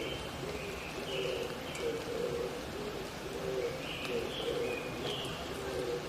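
Wild mountain pigeons cooing in repeated low notes, while a small bird gives two short runs of higher chirps. Underneath is a steady hiss of the wet forest after rain.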